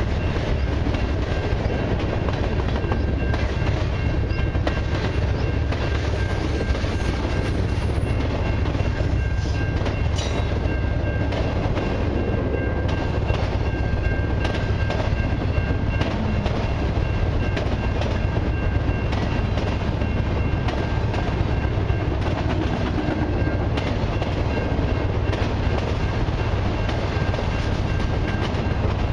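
Freight cars of a long CN mixed freight train rolling past close by, boxcars and gondolas giving way to autorack cars: a steady, deep rumble of steel wheels on rail with a constant clickety-clack. A thin, steady high tone runs over the rumble.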